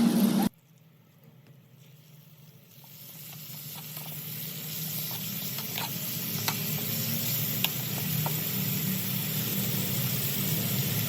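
Food frying in hot oil: a steady sizzle with scattered small pops, fading up from near silence after a sudden cut about half a second in.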